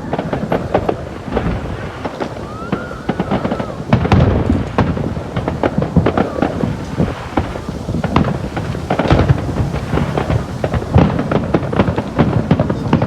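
Aerial fireworks going off in quick, irregular succession: a steady stream of booming bursts and crackles.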